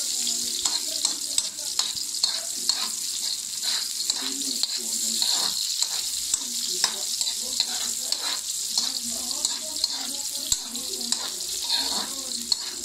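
Sliced onions frying in a hot wok, a steady sizzle, with a metal spoon stirring and tapping against the pan in frequent short clicks.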